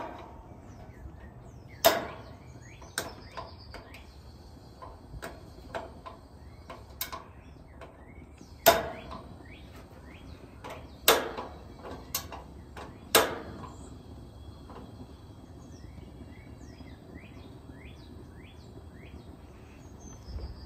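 Sharp single clicks of a gas griddle's burner igniter, about a dozen at irregular intervals of roughly a second, as the burners are being lit. Birds chirp faintly near the end.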